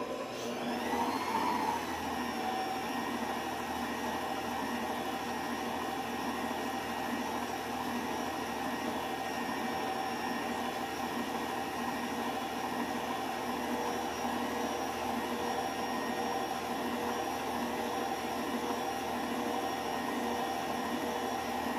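Stand mixer motor spinning up over the first two seconds, then running steadily on low speed, beating an egg into creamed butter and sugar.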